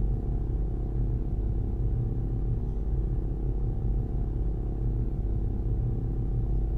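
Steady low rumbling drone with faint held tones above it, a soundtrack rumble effect.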